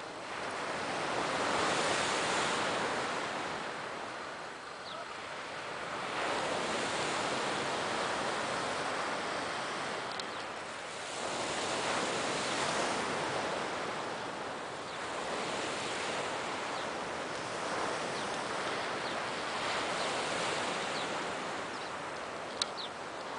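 Sea waves washing onto the beach, the surf swelling and fading every few seconds. A few faint high chirps and a single sharp click come near the end.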